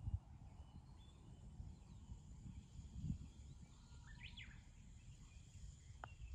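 Faint outdoor ambience with low wind rumble on the microphone, a short bird chirp about four seconds in, and a light click near the end.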